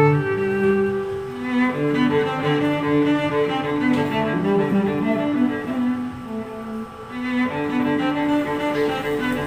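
Background music: a slow melody on bowed string instruments, with long held notes.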